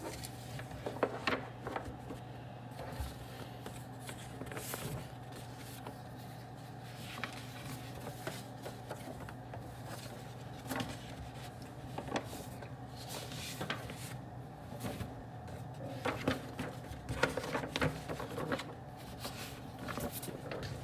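Office / study-room ambience: a steady low hum with irregular light clicks and taps.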